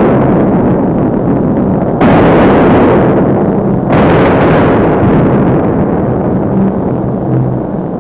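Heavy explosions: sudden loud blasts, each trailing off into a long rumble, with new blasts about two and four seconds in, over a steady low drone.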